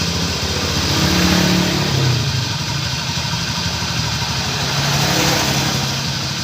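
Honda Scoopy scooter's single-cylinder engine running with its CVT cover off, its speed rising and falling slightly, with a rough grating noise that the mechanic traces to a worn, stiff crankshaft bearing.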